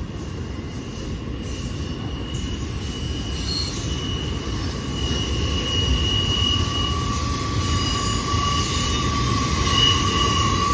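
CSX intermodal freight train rolling on steel rails, a low rumble with high-pitched steel wheel squeal that comes and goes, growing steadily louder as the train approaches.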